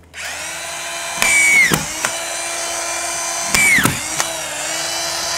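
Cordless drywall screw gun running steadily and driving two screws through drywall shim strips. Each screw loads the motor for about half a second, and its whine bends down in pitch before a sharp click.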